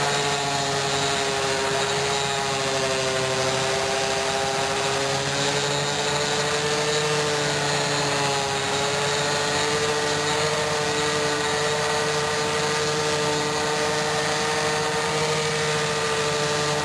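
Electric random orbital sander running steadily with a polishing pad, buffing burnt-on plastic off a chrome motorcycle pipe; its hum wavers slightly in pitch.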